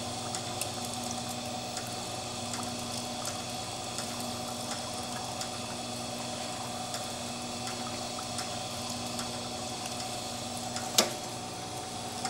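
3D-printer filament extrusion line and its spool winder running: a steady machine hum with several constant tones, an even hiss and faint scattered ticks. A single sharp click near the end.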